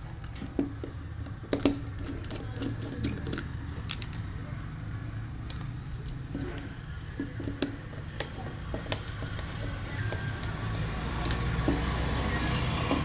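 Scattered small clicks and taps of hand wiring work as a neutral wire is fastened into a terminal, over a steady low background rumble that grows louder near the end.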